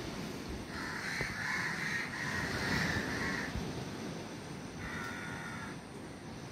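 Crows cawing: a run of repeated caws starting about a second in and lasting a few seconds, then a shorter burst of calls near the end, over a steady low rush.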